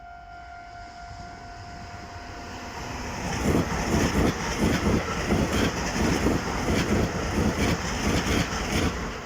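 A commuter electric train passes over a level crossing. Its wheels clatter over the rail joints and crossing in a steady rhythm of about two knocks a second, starting about three seconds in. At first the crossing's steady warning tone is heard, and it fades under the train.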